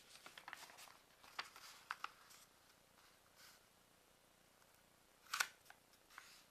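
Faint rustles and small crinkles of a sheet of origami paper being folded and creased flat by hand, with one louder crackle of the paper about five seconds in.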